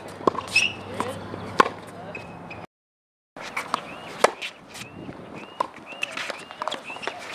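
Tennis balls struck by rackets in a baseline rally on a hard court: a run of sharp hits about a second apart, with short high chirps between them in the second half. The sound cuts out completely for about half a second around three seconds in.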